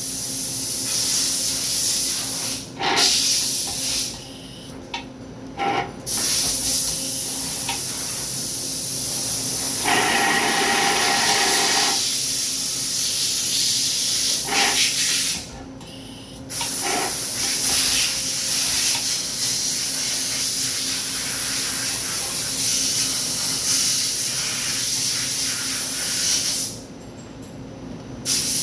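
Daewoo Puma CNC lathe running under flood coolant: a steady spraying hiss over a faint steady hum. The hiss drops away briefly three times.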